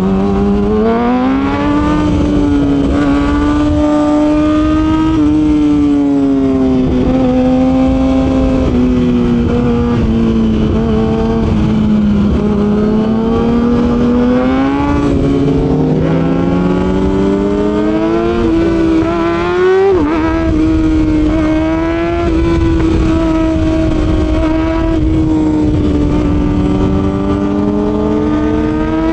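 Kawasaki ZX-6R's inline-four engine through an SC Project slip-on exhaust on stock headers, running with its note rising and falling slowly with the throttle, and a short break and jump in pitch about twenty seconds in.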